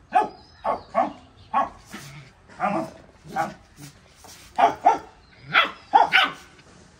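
Rottweiler puppy barking in play: about a dozen short, high-pitched barks at uneven intervals, some in quick pairs.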